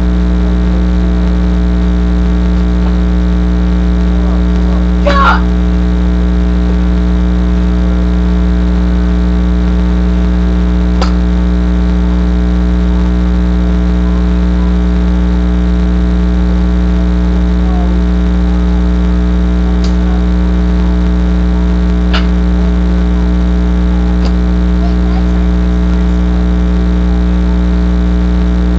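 A loud, steady electrical hum with a buzzy edge runs throughout. A few sharp cracks and knocks come from wooden boards being broken and handled, the loudest about five seconds in.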